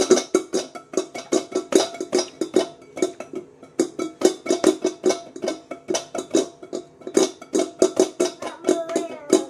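A stainless steel pot being slapped with open hands, drummed rapidly and unevenly at about four or five hits a second, each hit ringing briefly with a metallic tone.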